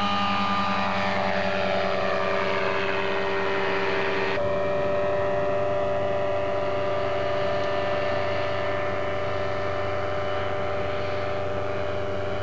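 Gyrocopter engine and propeller running at high power. Its pitch falls over the first few seconds, and the sound changes abruptly about four seconds in.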